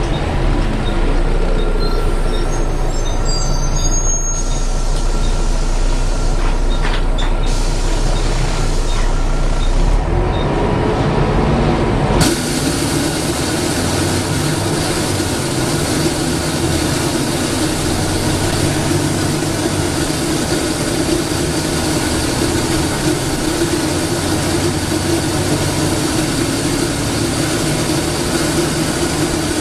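Inside a Volvo B7TL double-decker bus, its six-cylinder diesel running as the bus slows and then pulls away again. About twelve seconds in, a loud, steady rushing noise cuts in suddenly and carries on: the bus's loud suction noise, louder than its cooling fan.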